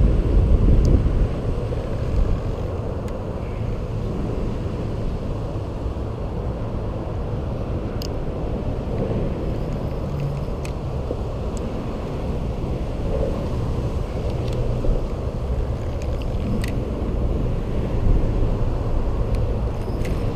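Steady low rumble of road traffic, with a few isolated sharp clicks.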